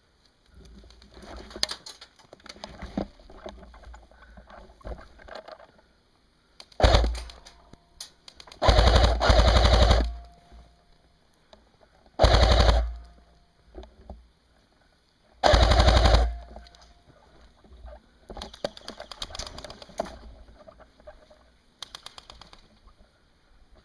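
G&G Combat Machine electric airsoft rifles firing on full auto: about five loud rapid bursts, each lasting up to about a second and a half, the longest in the middle. Quieter, irregular crackle fills the gaps between bursts.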